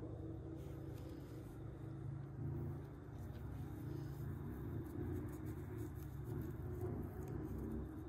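Low steady background rumble, with faint soft clicks and rustles of cloth straps and black buckles being handled on a wooden buckle frame.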